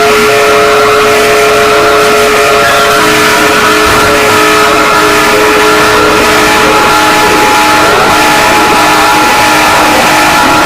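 Mock emergency-alert alarm: several harsh electronic tones held at once, very loud. From about two-thirds of the way through, siren-like glides sweep up and down over them, and one rises near the end.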